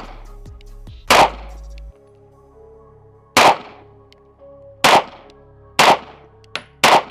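Five shots from a Smith & Wesson Equalizer 9mm subcompact pistol, fired singly at an uneven pace one to two seconds apart, the last three closer together.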